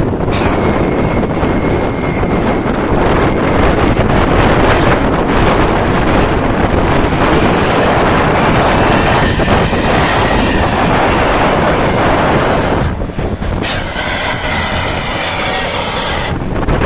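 Tour bus's diesel engine and open exhaust running hard under load, a loud continuous rumble mixed with road and wind noise.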